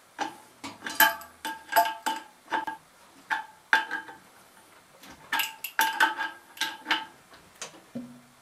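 A hand wrench clinking against the blower wheel hub as the set screw is tightened onto the motor shaft, about twenty irregular metallic clinks with a short lull about halfway. Each clink sets the sheet-metal squirrel-cage wheel and housing ringing briefly.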